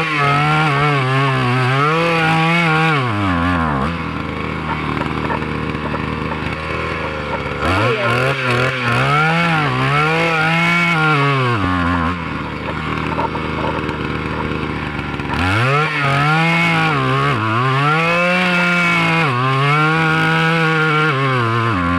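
Handheld two-stroke petrol earth auger revving high three times as it drills, its engine note wavering up and down under load. It drops back to idle about 4 seconds in and again about 12 seconds in.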